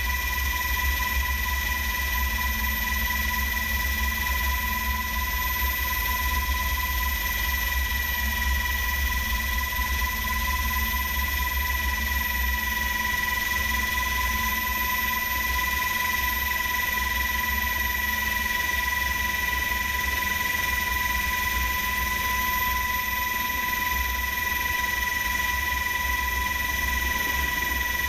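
Sikorsky HH-60 Pave Hawk helicopter in flight, heard from inside its cabin: a steady high whine over a low, rapid rotor throb.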